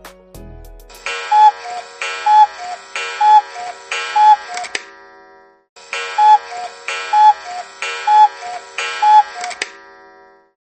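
A cuckoo's 'cuck-oo' call, a two-note falling phrase repeated four times about a second apart, then after a short pause four more times.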